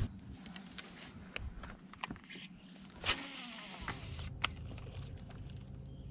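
Scattered small clicks and taps from handling a fishing rod and baitcasting reel, with a brief swish about three seconds in. From about four seconds a steady low hum sets in.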